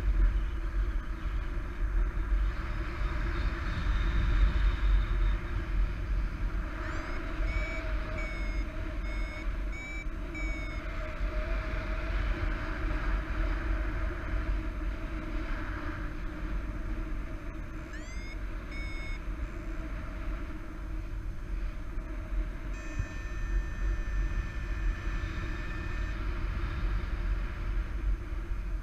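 Wind rushing over the camera microphone of a paraglider in flight. A flight variometer beeps over it: a run of short, evenly repeated beeps about a quarter of the way in, a brief second run about two-thirds in, then a steady held tone for a few seconds.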